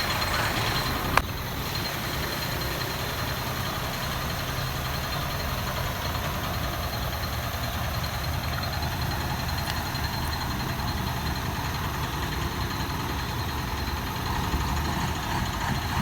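A road vehicle's engine running with a steady low rumble, and one sharp click about a second in.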